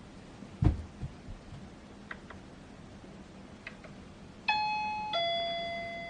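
Two-tone "ding-dong" door chime about four and a half seconds in: a higher note, then a lower note that rings on and slowly fades. Earlier, a dull thump about half a second in and a few light clicks.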